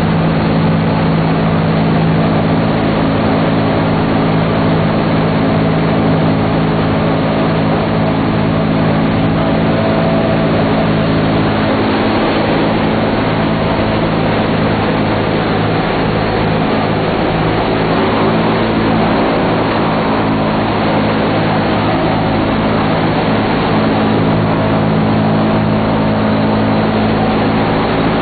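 Steady drone of a B-17 bomber's four Wright R-1820 Cyclone radial engines in level flight, heard from inside the aircraft with a dense rush of air and airframe noise over the engine tones.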